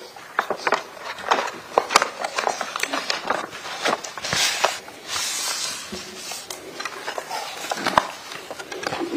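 Handling noise: a run of small clicks and knocks from objects being moved, with a longer rustle about four to five seconds in.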